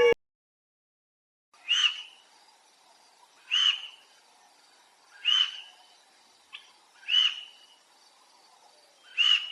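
A bird giving a short, high, arching call five times, about every two seconds.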